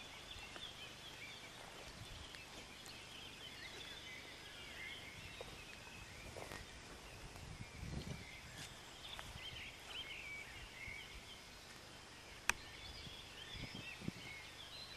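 Faint outdoor birdsong: many short chirps throughout, with one sharp click about twelve and a half seconds in and a few soft low thumps.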